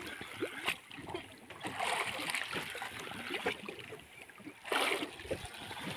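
Water lapping and splashing against the hull of a small wooden boat drifting at sea, irregular, with a brief louder splash near the end.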